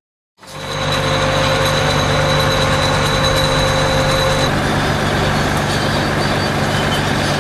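Bulldozer's diesel engine running steadily, with a thin high whine over it that stops about four and a half seconds in.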